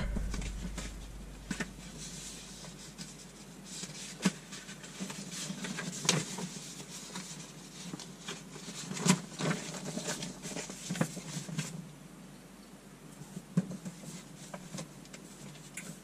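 Sheets of printer paper rustling and crinkling as they are handled and leafed through, with scattered light clicks and taps.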